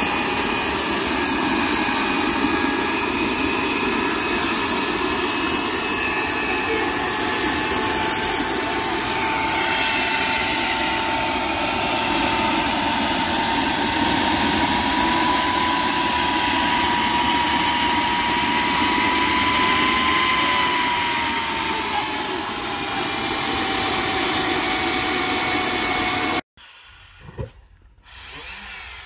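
KJ66 model gas-turbine jet engine running on a test stand: a steady loud rushing roar with a high whine. The pitch creeps up a little, then drops back about two-thirds of the way through, and the sound cuts off abruptly near the end.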